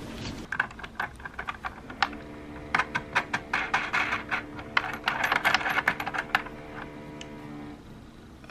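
Small metal clicks and taps as a hexagon-head bolt and its washer are turned by hand into a wooden sofa frame, coming thick and fast in the middle, over a faint steady hum.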